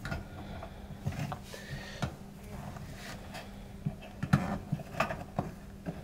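Hands handling a fuel pump module and its plastic fuel-line fittings at the tank opening: scattered light clicks and knocks of plastic parts being fitted.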